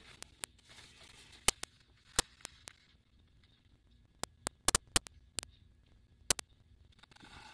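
A baby wipe in a gloved hand wiped around the rim of a silicone resin mold: about fifteen scattered small, sharp clicks, with faint rubbing in the first few seconds.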